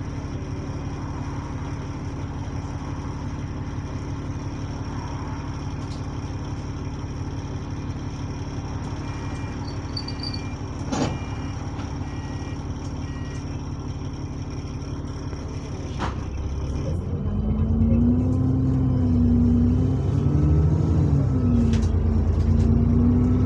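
City bus diesel engine idling, heard from inside the passenger saloon, with a short run of electronic beeps and a sharp knock about halfway. About two-thirds in, the engine gets louder as the bus pulls away, its pitch rising and dropping twice with the gear changes.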